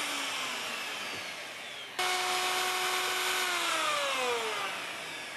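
Handheld router running while routing a groove for T-track in a wooden bench top; its motor whine slides down in pitch as it winds down. About two seconds in it comes in again at full speed, holds steady, then winds down once more near the end.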